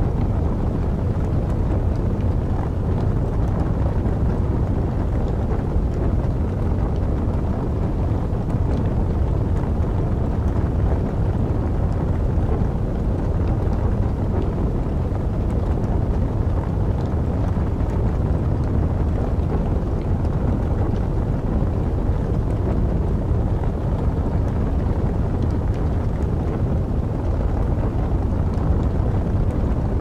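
Wood log fire burning: a steady low rumble, wind-like, with faint, sparse crackles.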